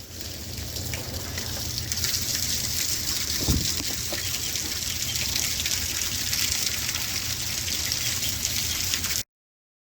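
Water pouring and splashing down a rain chain from a leaf-clogged gutter outlet, a steady gushing hiss with one low thud about three and a half seconds in. It cuts off suddenly near the end.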